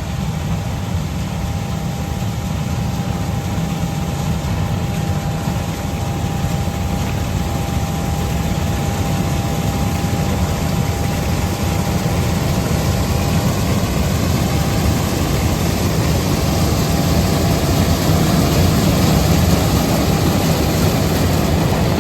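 John Deere S660 combine harvester running steadily in the field, a dense low engine and machinery drone with a thin steady whine that fades out about two-thirds of the way through.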